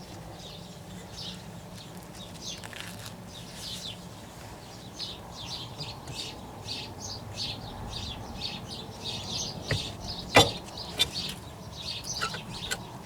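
Birds chirping repeatedly in the background over a steady low hum, with a single sharp click about ten seconds in.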